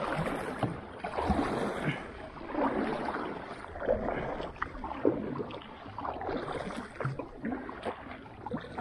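Kayak paddle strokes in calm water: the double-bladed paddle dips and pulls on alternating sides in a steady rhythm, a little over one stroke a second, each stroke a soft splash and swish of water.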